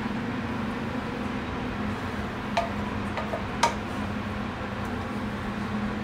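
A utensil clinking against a skillet and ceramic dish as sautéed mushrooms are served onto polenta, with two sharp clinks about a second apart near the middle, over a steady low hum.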